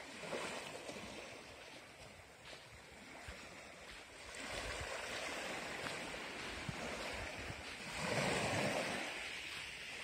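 Sea waves washing onto the shore, surging and falling back, with the loudest swell near the end.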